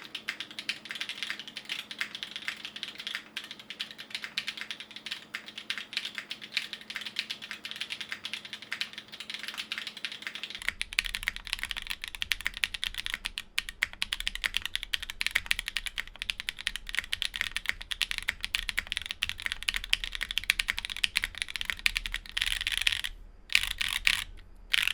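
Fast, continuous typing on a plateless custom aluminium mechanical keyboard with stock Zenclack Subuwu switches and GMK keycaps: a dense stream of key clicks. A low steady hum joins in about ten seconds in.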